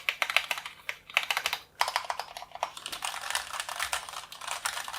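Keys of a Cherry MX Board 3.0 S mechanical keyboard with Cherry MX Red linear switches being pressed in a rapid run of keystrokes, with one brief pause a little under two seconds in. The clatter is fairly quiet and discreet for a mechanical keyboard.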